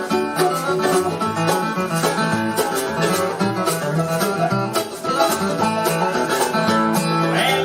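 Bluegrass band playing an instrumental break without singing: banjo and guitar picking over a washtub bass line, with a steady beat of washboard strokes.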